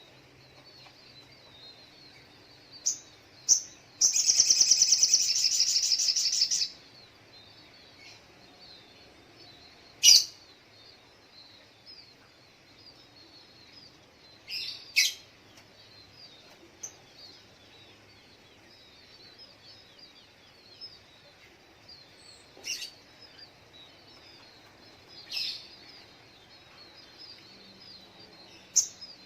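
Sogok ontong, a sunbird, calling: a loud rapid trill about four seconds in that lasts a couple of seconds, then single sharp high chirps every few seconds, over faint continuous twittering of small birds.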